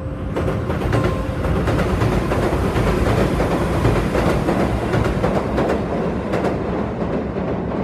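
Electric train running past, its wheels clacking over rail joints in a steady loud rush of noise that builds slightly in the first second.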